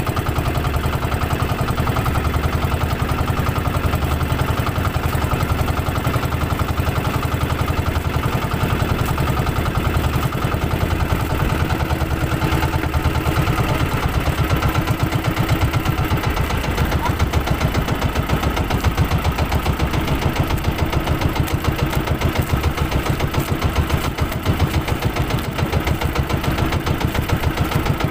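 Small outrigger fishing boat's engine running steadily at an even speed, with a fast regular beat.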